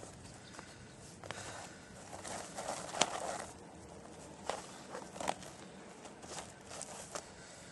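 Rustling and scraping of canvas and cord as a rolled canvas swag is tied up, with scattered sharp clicks, the loudest about three seconds in.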